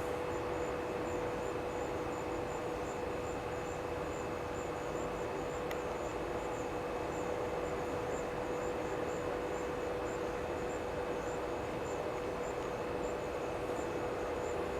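Outdoor evening ambience: a steady hum and low rumble, with a faint high insect chirp repeating a little over twice a second.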